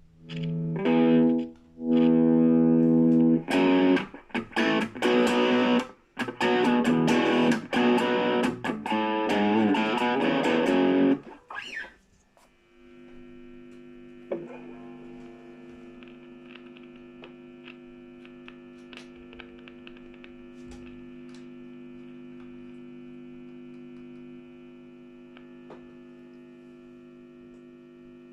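Gibson Les Paul Custom electric guitar strummed through a distorted amp, a test of the rewired guitar with its tone capacitor removed. After about eleven seconds the playing stops and a steady, quieter hum from the amp carries on.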